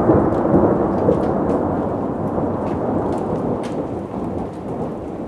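Thunder rumbling after a lightning flash, loudest about the first second and slowly fading, over steady rain with scattered sharp ticks of drops striking.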